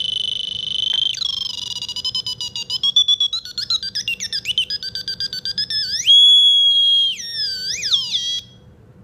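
Piezo buzzer driven by a 4093 Schmitt-trigger oscillator circuit, squealing in shrill electronic tones whose pitch shifts as hands move over the breadboard. A steady tone drops in pitch about a second in, turns into a fast pulsing warble, jumps to a loud steady high tone about six seconds in, glides up and down, and cuts off suddenly near the end.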